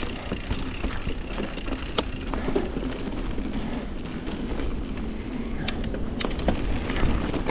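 Wind buffeting the microphone over the rumble of a mountain bike rolling on a dirt trail, with a few sharp clicks and rattles from the bike.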